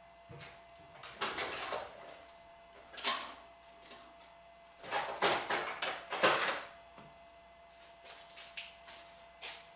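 Metal parts and hand tools clinking, knocking and scraping on a workbench as they are handled during the disassembly of a cast-iron arbor press. There are several spells of clatter, the loudest about five to six and a half seconds in, with a few light clicks near the end.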